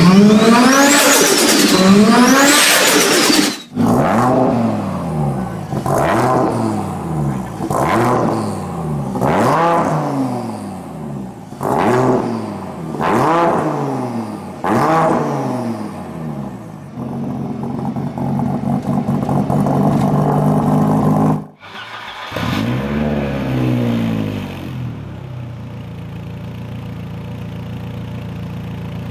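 Turbocharged car engines revving, in separate clips. First comes a hard rev with a high whistle rising and falling over it. Then an engine blipped repeatedly about once a second and then held at steady revs. After a break, another engine revs up once and then holds a steady note.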